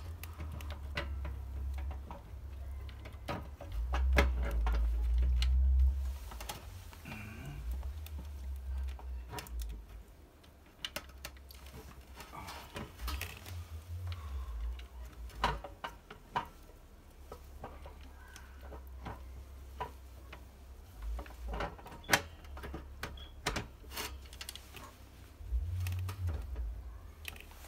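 Irregular clicks and taps of the halogen oven lid's plastic casing being handled and pressed into place, with a low rumble underneath that is strongest for a couple of seconds about four seconds in.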